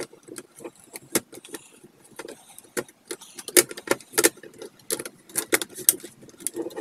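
A string of irregular plastic clicks and metal knocks as the snap-on front cover of a Dell OptiPlex 7010 ultra small form factor PC is pressed onto its steel chassis and its clips latch in. The clicks come thickest in the second half.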